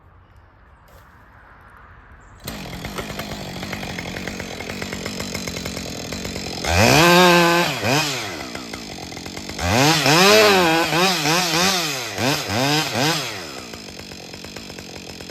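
A Husqvarna 562 two-stroke chainsaw comes in suddenly about two seconds in and runs at idle. It is then revved hard twice, the second time with its pitch rising and falling over and over, before it drops back to idle near the end.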